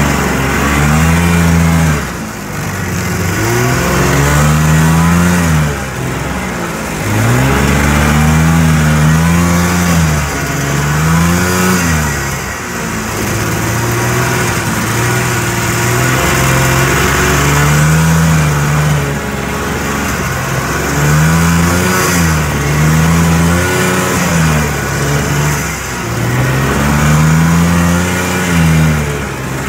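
Vintage John Deere snowmobile's two-stroke engine heard from the rider's seat, revving up and easing off over and over through deep powder, its pitch rising and falling every few seconds.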